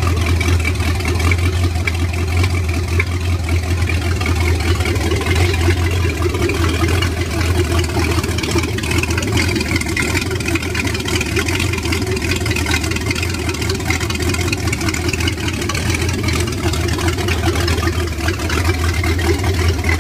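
MerCruiser 188's Ford 5.0 V8 marine engine idling steadily, running well.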